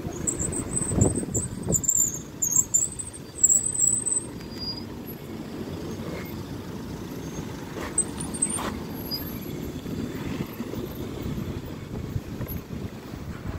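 Roadside wind and traffic rumble on a phone's microphone, with rubbing and knocks from the phone being handled against clothing. Some faint high chirps come in the first four seconds.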